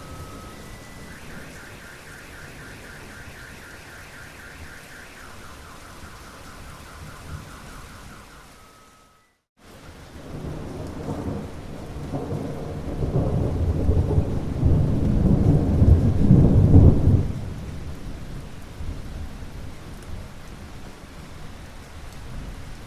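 Steady rain with faint pulsing tones in its first few seconds, then a short break of silence. After the break a long, deep rumble of thunder builds over rain, grows loudest about seven seconds later and stops abruptly, leaving the rain falling.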